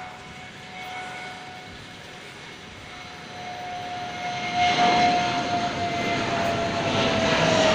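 Fighter jet's engine growing louder as the jet approaches: a steady whine over a rushing noise that swells from about three seconds in, the whine dipping slightly lower near the end.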